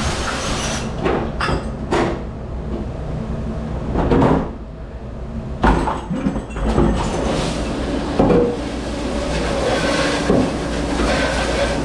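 Dishes, trays and racks knocking and clattering in a commercial dish room, over a steady machine hum.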